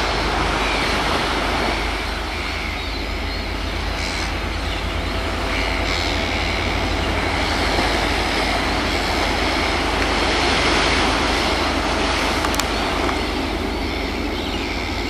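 A DC-class diesel-electric locomotive hauling a passenger train past at a distance. It is mixed into a steady rushing noise of surf and wind.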